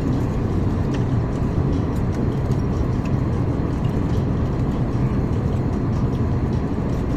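Steady airliner cabin noise in flight: the even, low drone of the engines and the air rushing past the fuselage, with a few faint light clicks.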